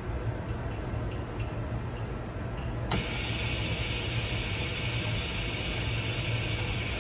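OCA vacuum laminating machine starting its lamination cycle: a low steady hum, then a click about three seconds in and a steady hiss of air as the chamber is pressurised.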